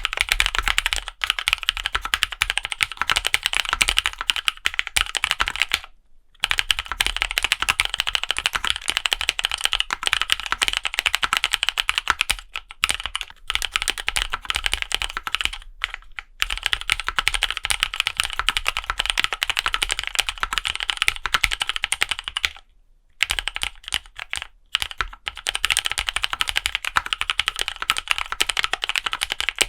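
Fast typing on a gasket-mount KBDfans D60 60% mechanical keyboard with Novelkeys x Kailh Cream linear switches and clear ABS keycaps: a dense, continuous run of keystroke clacks that stops briefly a few times.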